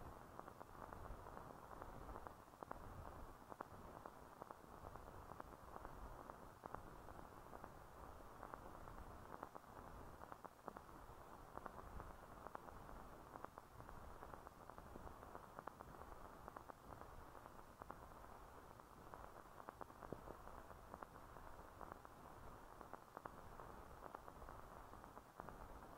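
Near silence: a faint, steady hiss with scattered crackles and clicks, the background noise of an old newsfilm transfer that has no recorded sound.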